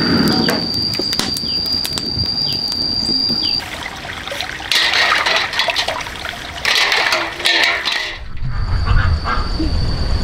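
Water splashing in two short bursts, about a second each, after a steady high-pitched whine stops about a third of the way in. Near the end a low rumble sets in and the high whine returns.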